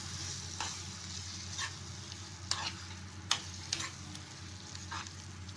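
Mutton liver with onion and tomato masala frying in a kadai, sizzling steadily, while it is stirred with a short scrape against the pan every second or so.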